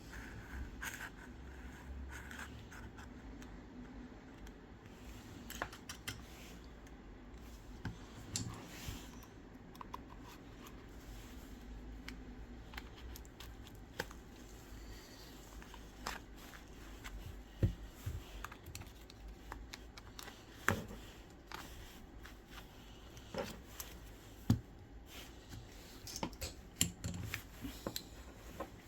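Scattered small clicks, scratches and scrapes as the cracked display of an iPhone 11 Pro Max is worked loose from its double-sided adhesive by hand, with a few sharper clicks in the second half.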